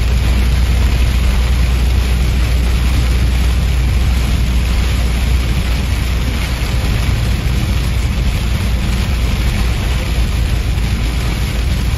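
Car cabin noise at motorway speed in heavy rain: a steady low road rumble with the hiss of rain and tyre spray on the windscreen.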